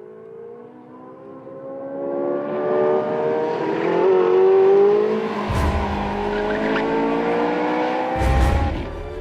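Porsche 918 Spyder's 4.6-litre V8 accelerating, its note climbing slowly in pitch and growing louder, with two brief low rumbles about halfway through and near the end.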